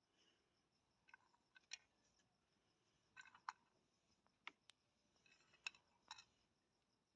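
Near silence with several faint, scattered clicks and light taps as fingers pick sliced almonds off a plate and set them on a bowl of custard.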